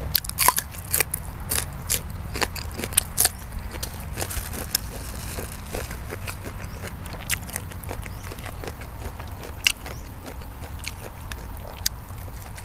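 A person chewing and biting food close to the microphone: a run of crisp crunches and wet mouth clicks, densest in the first few seconds, then slower, steadier chewing.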